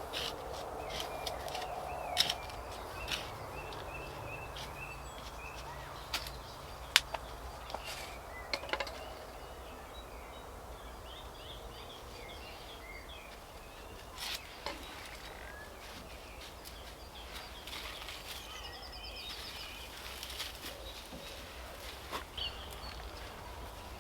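Faint birds chirping in short calls over a steady outdoor background noise, with scattered sharp clicks and knocks.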